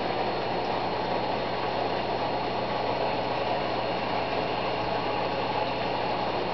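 Aquarium pumps and filters running: a steady hum under a continuous rush of moving, bubbling water.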